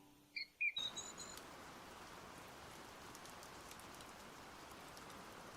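A few faint, short bird chirps in the first second, then a steady faint hiss of background noise with no clear source.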